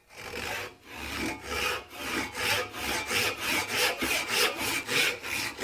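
Brass-backed hand back saw cutting through a wooden hammer handle held in a vise, in quick, even rasping strokes at about three a second.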